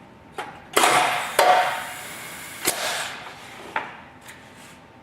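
Clicker 700 press cutting velcro with a clicker die: sharp clicks and knocks of the die and press, with a loud rushing noise about a second in that fades away over the next two seconds.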